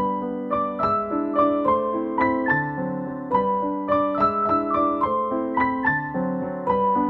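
Background music on a piano-like keyboard: a quick melody of single notes, several a second, over lower held notes.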